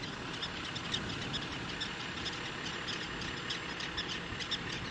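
Many short, high calls from a prairie dog colony, scattered throughout, over a steady low rumble.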